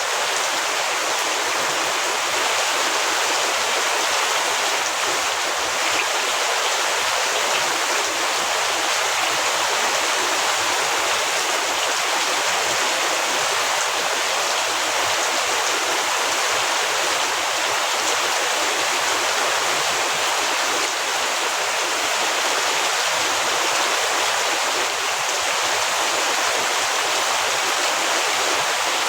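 Heavy rain falling, a steady, even rush of water with no breaks or changes.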